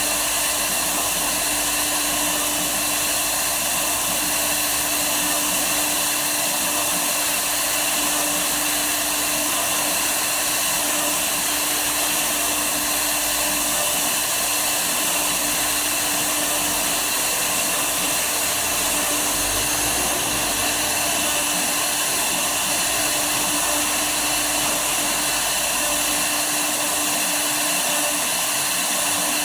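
A woodworking CNC router's spindle running steadily: a constant high whirr with a hiss and a few steady tones, including a low hum, that stays at one level throughout.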